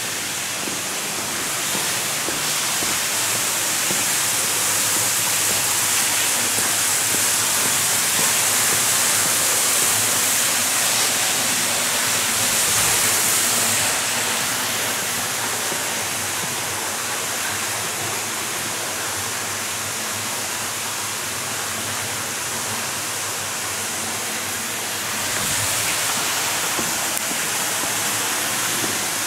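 Steady rushing hiss of tunnel ambience on an underground railway platform. It swells a little in the first half, eases off, then rises again near the end.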